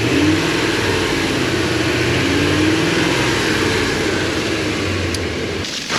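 Ford E-250 van engine idling steadily after being put back together, then cutting off abruptly near the end.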